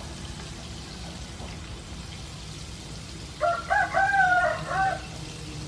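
A rooster crows once, about three and a half seconds in, a call lasting about a second and a half. Under it runs the steady sizzle of battered squid rings frying in hot oil in a wok.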